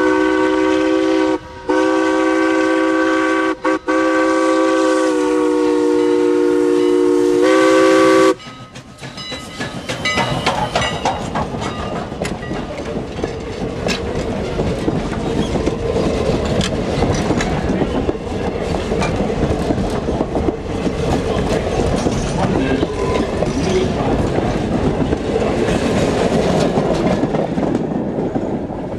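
Steam locomotive's multi-note whistle blowing for the crossing for about eight seconds, in three blasts with the last the longest and its chord shifting slightly twice. Then the train's passenger coaches roll past, with a steady rumble and the clicking of wheels over the rail joints.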